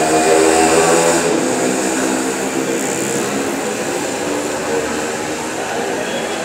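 Electronic keyboard holding sustained chords through a stage loudspeaker in a reverberant hall, loudest in the first second or two.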